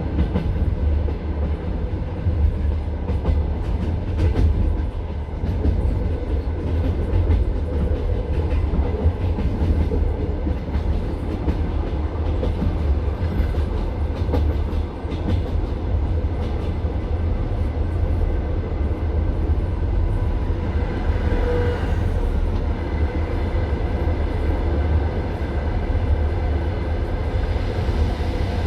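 Passenger train carriage running along the track, heard from inside at the window: a steady rumble of the wheels with scattered clicks from the rail joints. A few faint higher tones come in for a few seconds past the two-thirds mark.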